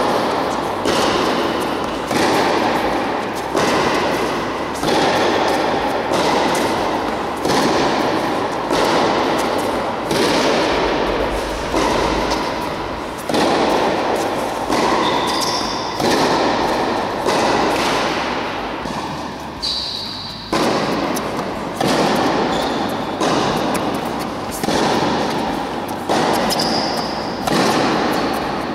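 Tennis ball struck by rackets and bouncing on a hard indoor court in a rally, sharp hits about once a second, each ringing on in the big hall's echo. A few short high squeaks are heard now and then.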